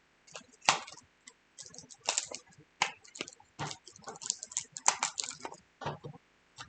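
A face cream's packaging being opened by hand: an irregular run of sharp clicks, crackles and taps.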